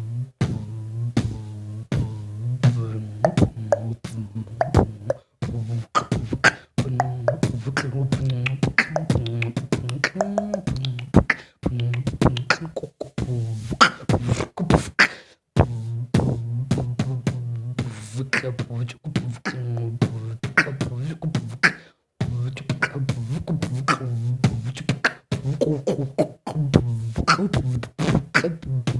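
Beatboxing in the bass style: a low hummed bass tone held under sharp mouth clicks and snare sounds, in phrases broken by short pauses.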